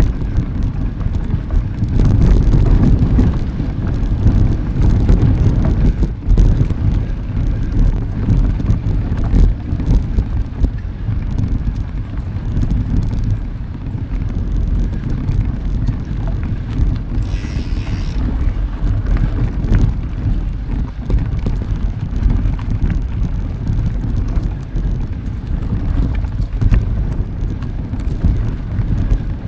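Wind buffeting the microphone of a camera carried on a moving mountain bike: a loud, low, uneven rumble that swells and dips.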